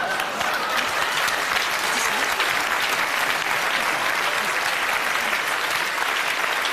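Studio audience applauding, a dense, steady clapping of many hands.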